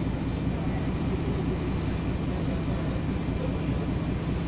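Star Ferry boat's engine running steadily underway, a low pulsing throb several times a second under a wash of water and wind noise.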